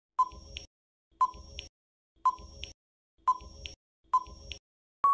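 Countdown timer sound effect: five short beeps, one a second, each a quick ping that fades away. A longer steady beep starts at the very end.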